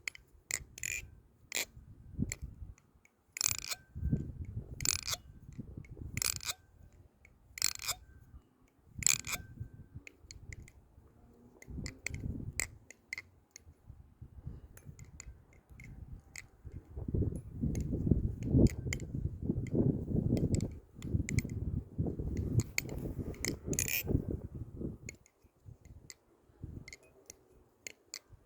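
Balisong (butterfly knife), a clone of the Armed Shark Krake Raken V3, being flipped: sharp metallic clicks of the handles and blade swinging and snapping closed, about one every second or so through the first ten seconds and again near the end, with a stretch of low rubbing handling noise in between.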